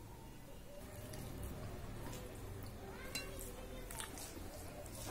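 Fingers mixing rice and curry on a stainless steel plate, with a few soft wet clicks of eating, over a low steady hum.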